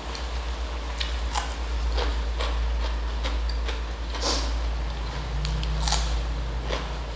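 Wet mouth clicks and smacks of someone chewing grilled chicken, irregular and a few a second, with a few louder smacks, over a steady low hum.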